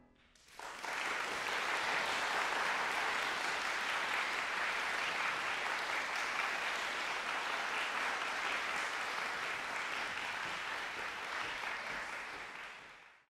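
Audience applauding steadily, starting about half a second in and fading away near the end.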